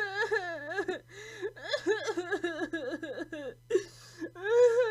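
Cartoon-style crying sound effect: a high-pitched voice whimpering and sobbing in quick, wavering cries. It stops briefly near the end, then comes back as a longer held wail.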